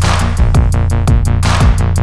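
Instrumental electronic hip-hop beat: drum machine with quick hi-hat ticks, about four a second, and deep falling bass kicks, with no vocals.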